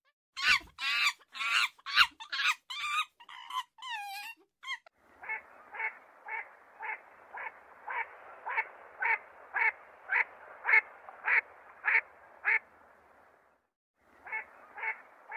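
Macaques give a quick run of shrill, pitch-bending calls for the first few seconds. Then a duck quacks steadily, about two quacks a second, stops for a moment, and quacks a few more times near the end.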